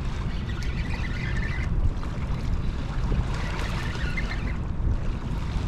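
Steady low wind rumble buffeting the microphone, mixed with the wash of river water along the shore.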